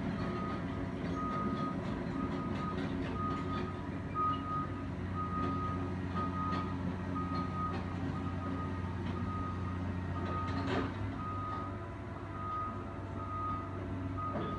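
A back-up alarm beeps steadily, about one and a half beeps a second, over the steady running of a Caterpillar 345D excavator's diesel engine. A short clank about eleven seconds in.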